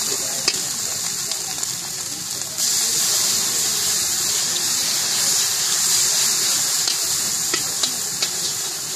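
Batter-coated slices deep-frying in hot oil in an iron kadai: a steady sizzle with a few small pops. About two and a half seconds in the sizzle gets louder as a second battered slice goes into the oil.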